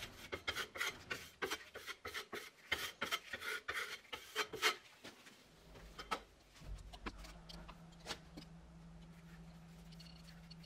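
Steel flat trowel scraping over a fleece sealing collar bedded in waterproofing compound on a wall, in a quick run of short smoothing strokes that stop about five seconds in. After that only a faint steady low hum.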